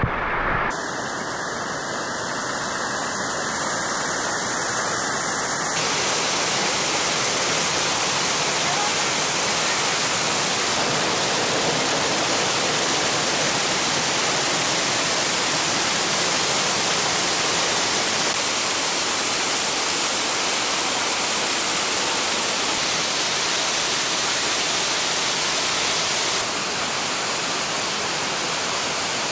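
Steady rush of a waterfall's falling water, its level shifting abruptly a few times.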